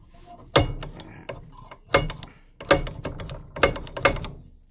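Metal being handled at a workbench: about five sharp metallic knocks that ring briefly, with clicking and rattling between them.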